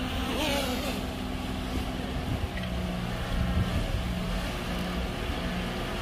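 Heavy diesel earthmoving machinery running steadily. The engine note shifts lower a little over two seconds in.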